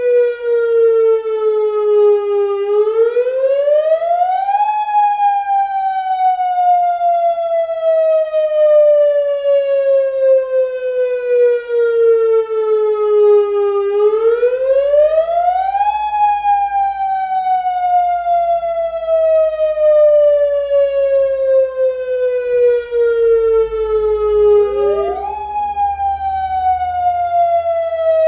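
Tsunami warning siren sounding: a single tone that rises over about two seconds and then falls slowly for about nine seconds, the rise-and-fall repeating three times, the last rise much quicker.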